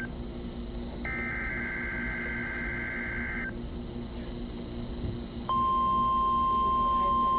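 NOAA Weather Radio SAME alert header for a Required Weekly Test: a burst of two rapidly alternating high tones, the digital data screech, lasting about two and a half seconds. About five and a half seconds in, the steady 1050 Hz weather radio warning alarm tone starts and holds, louder than the header; it is the signal that switches on alert receivers.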